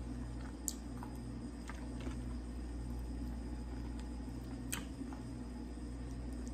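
Quiet eating sounds: chewing and fried chicken being torn apart by hand, with two short sharp clicks, about a second in and near the five-second mark, over a steady low hum.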